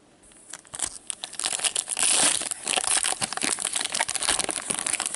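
A hockey card pack's wrapper being torn open and crinkled in gloved hands: a dense crackling that is loudest about two seconds in.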